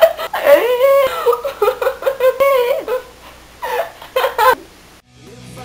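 A girl laughing and giggling in high, wavering bursts, with two short final bursts of laughter; band music starts near the end.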